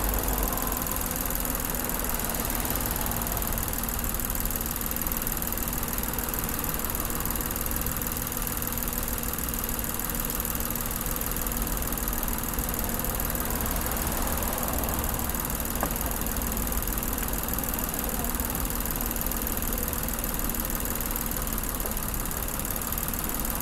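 A car engine idling steadily, heard close up with the bonnet open.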